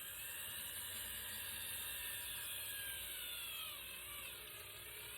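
Power drill running as it bores into a fiberglass overfender, its motor whine holding steady and then dropping in pitch about four seconds in as it slows under load.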